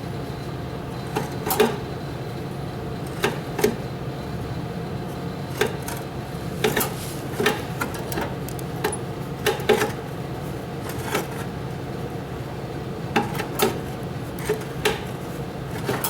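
Drive chain of a Kawasaki KLT 200C three-wheeler being turned by hand a little at a time, giving irregular sharp metal clicks and clacks, often in pairs, over a steady low hum.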